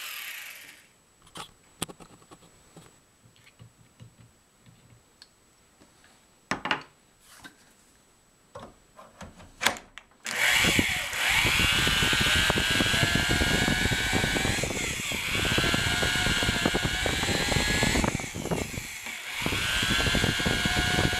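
Electric drill driving a 1/2-inch annular cutter over the steel muzzle of an AR-180B barrel. The drill winds down in the first second, a few sharp clicks and knocks follow, and about ten seconds in the drill starts again and runs steadily with a high-pitched cutting whine, easing off briefly twice.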